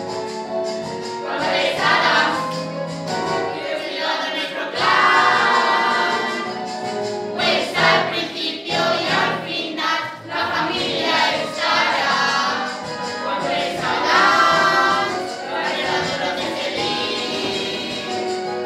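A group of young voices singing a musical-theatre number together, with instrumental accompaniment.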